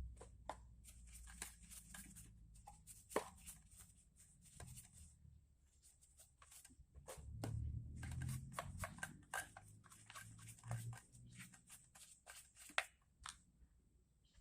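Scattered small clicks, taps and rustles of hands handling small carburetor parts, over a faint low rumble.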